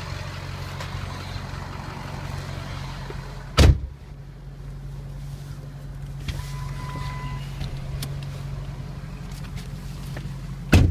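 Ford 6.0 L Power Stroke turbo-diesel V8 idling steadily. Two heavy thumps come from the truck's cab doors shutting, one about three and a half seconds in and one at the very end.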